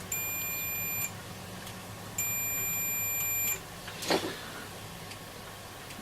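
Digital multimeter's continuity tester beeping twice, a steady high tone of about a second and then about a second and a half, as the probes make contact while tracing the wiring. A short click or knock follows about four seconds in.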